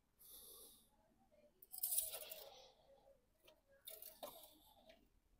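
A cloth rustling as it wipes the engine oil dipstick, then the thin metal dipstick rattling and scraping in its tube as it is pushed back in, with a louder clatter about two seconds in and another near four seconds. The engine is switched off.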